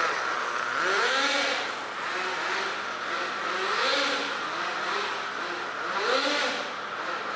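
A nitro RC drift car's small two-stroke glow engine revving up and falling back over and over, rising sharply about 1, 4 and 6 seconds in, with a high hissing rush at each peak. The engine is running a slightly rich mixture with its power held down.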